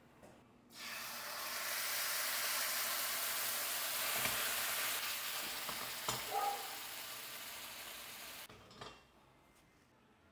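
Food sizzling as it fries in oil in a pan, with a few light knocks of a utensil against the pan. The sizzle starts abruptly about a second in and cuts off abruptly near the end.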